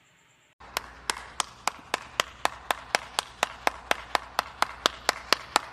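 A rapid, even series of sharp clicks, about four or five a second, over a low steady hum; it starts abruptly about half a second in.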